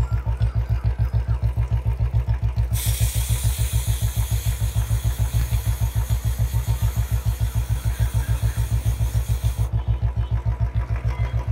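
Royal Enfield Bullet's single-cylinder engine idling in first gear with a steady, rapid thump. From about three seconds in until about ten seconds, a long hiss of aerosol chain cleaner sprays onto the chain.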